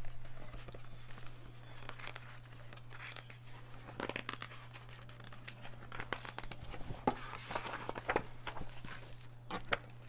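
Paper rustling and crinkling as the pages of a picture book are turned and handled, in short scattered rustles that cluster about four seconds in and again from about seven seconds on, over a steady low hum.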